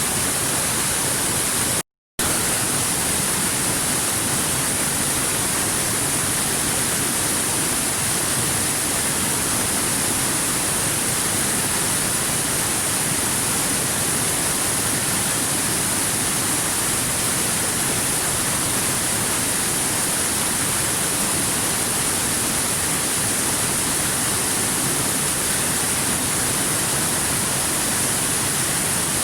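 Steady rush of stream water running over rocks, an even hiss brightest in the high range, that cuts out completely for a fraction of a second about two seconds in.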